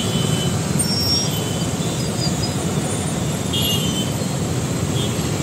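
Road traffic noise in a jam on a wet road: a steady low rumble of running engines, with a few faint, brief high tones.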